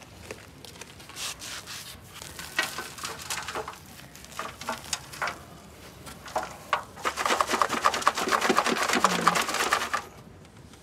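Gritty soil with small stones scooped by hand into a plastic pot, scraping and crunching, then poured out into an old stainless-steel kitchen sink. The pour is the loudest part: a dense, fast rattle of soil and pebbles lasting about three seconds, starting about seven seconds in.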